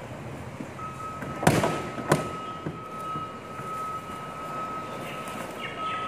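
The lid of a large plastic wheelie bin is flung open and bangs twice against the bin, the first bang the louder. A steady high-pitched tone runs underneath.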